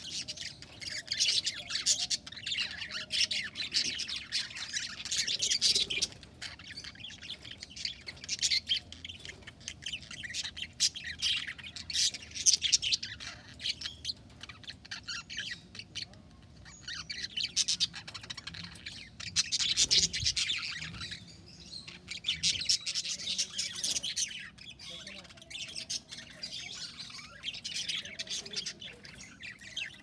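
A flock of budgerigars chattering, many rapid high chirps and warbles overlapping, coming in loud bouts with shorter quieter lulls between them.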